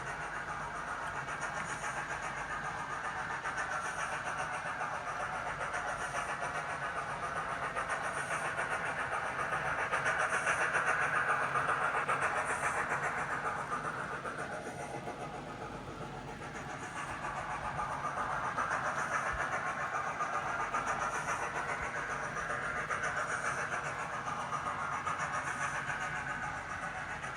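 Model 9F locomotive and a long rake of open wagons running round a model railway layout at steady speed: a continuous rattle and hum of wheels on the rails. It grows louder and fades as the train passes nearer and farther, loudest about ten seconds in, dipping around fifteen seconds, then rising again.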